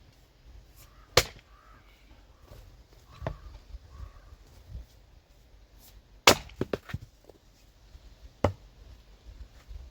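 Axe splitting firewood: three sharp chopping strikes a few seconds apart and a lighter knock between the first two, the middle strike followed by a quick rattle of smaller knocks.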